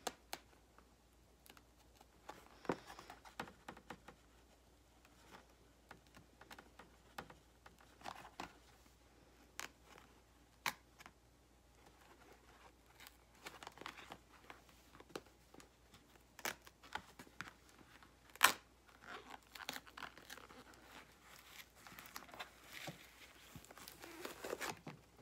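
Sock packaging being torn open and crumpled by hand: scattered rustling and tearing with sharp clicks, the loudest snap about eighteen seconds in.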